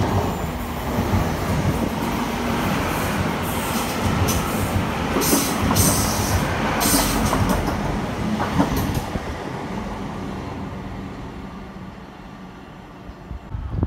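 TransPennine Express Class 802 train running past the platform: a steady rumble of engines and wheels on rail, with a rush of high hiss as the carriages go by about four to seven seconds in, then fading away.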